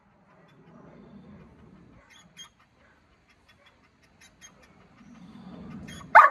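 Young German Shepherd panting quietly, then one sudden loud bark right at the end.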